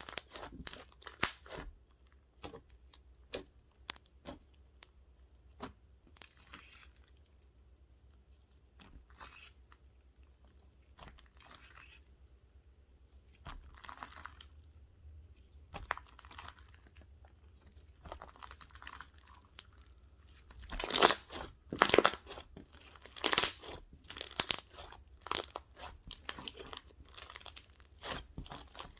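Close-miked chewing and mouth sounds from eating bubble tea: scattered sharp clicks and short crunchy bursts, growing denser and louder in the last third.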